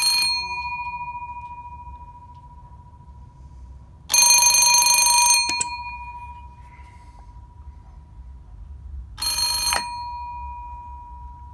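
Bells of an Ericsson Plessey N1241A1 railway signal post telephone ringing for an incoming call: a ring ending just as it starts, one long ring about four seconds in, then a short ring near the end that cuts off. After each ring the bell keeps sounding a fading tone.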